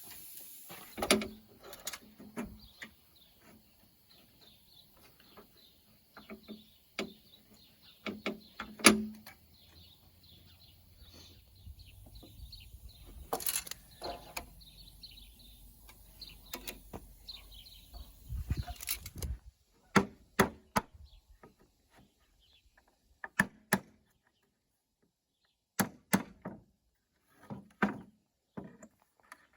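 Irregular wooden knocks and clunks of pallet boards being handled and set down, with faint bird chirps in the background; after about twenty seconds the knocks come in short isolated groups with quiet in between.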